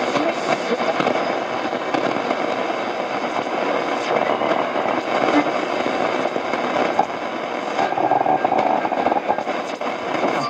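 Shortwave radio static from a Realistic DX-60 receiver's speaker: a steady rushing hiss with crackle and faint whistling tones, no station audible.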